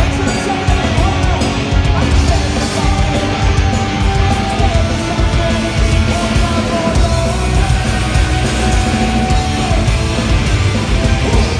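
Punk rock band playing live on electric guitars, bass and drums, loud and dense, heard from among the audience.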